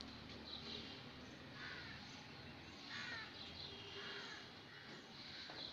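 Faint bird calls in the background, several short calls about a second apart, over a low steady hiss.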